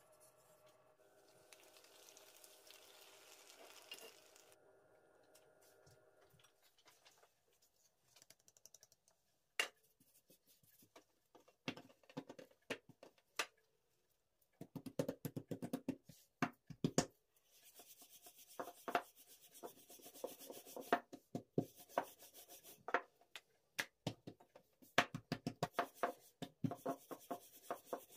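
Dough being worked by hand on a floured wooden tabletop: scattered sharp taps and knocks, then a run of taps with rubbing as the dough is rolled out with a rolling pin.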